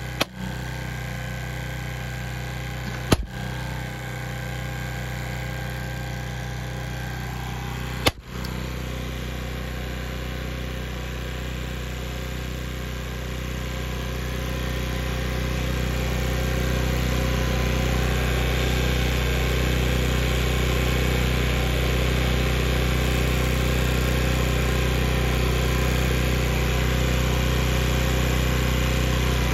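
Engine running steadily with a low, even hum; it grows louder about halfway through and holds there, with a few brief clicks in the first eight seconds.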